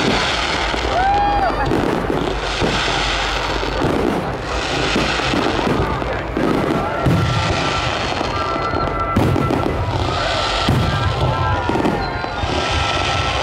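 Aerial fireworks shells bursting one after another: deep booms with crackle over them, several heavier booms in the second half.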